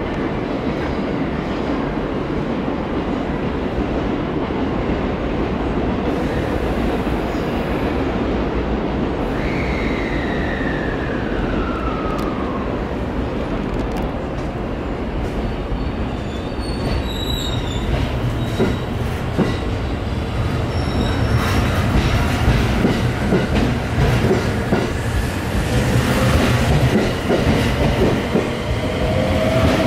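Electric limited-express train running at the platform, then pulling out: the sound grows louder from about two-thirds of the way in, with a whine rising in pitch near the end as it gathers speed.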